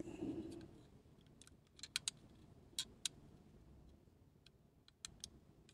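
Faint, irregular small clicks and ticks of a die-cast Hot Wheels car handled in the fingers, its loose wheels and chassis knocking as it is checked for a pull-back motor.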